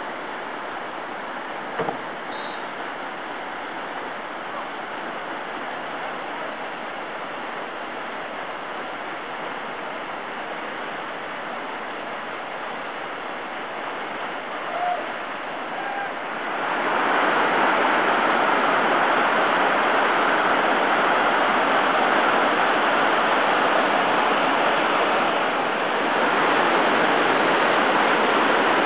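Whitewater rushing over rock drops and a waterfall in a steady noise of falling water, which grows louder a little over halfway through and stays loud.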